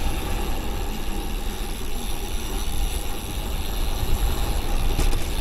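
Wind rushing over the microphone of a road bike descending at speed, with a heavy low rumble. A couple of light clicks come near the end.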